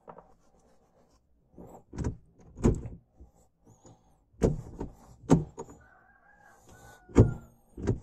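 Manual gear lever of a first-generation Kia Picanto being shifted through the gears, giving a series of separate clunks and clicks as it goes into each gear, about five or six of them.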